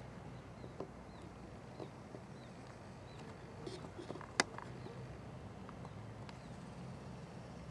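Quiet outdoor ambience: a steady low hum with scattered faint clicks and one sharper click a little past the middle, and a few faint short high chirps in the first half.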